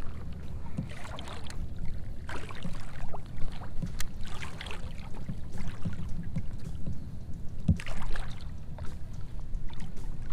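Water splashing and dripping in several short bursts as a landing net holding a fish is lifted out of the water beside a float tube, over a steady low rumble.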